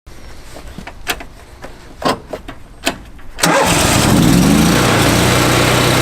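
A few sharp clicks, then an engine starts about three and a half seconds in, its pitch rising briefly before it settles into a steady run.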